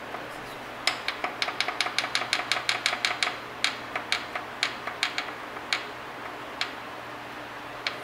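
Sharp metallic clicks starting about a second in, four or five a second at first, then thinning to single clicks: the loose number 6 connecting rod of a 1976 Corvette's Chevrolet 350 small-block V8 being rocked by hand on its crankshaft journal. The play is the sign of a worn-out rod bearing, the source of the engine's knock.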